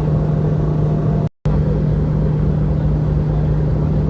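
Steady engine drone with a strong low hum and rumble, broken once by a very brief silent gap about a second and a half in.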